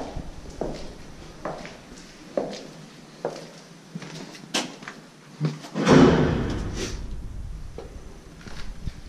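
Footsteps and small knocks on a hard floor, then a loud thump about six seconds in that rings on in the empty space.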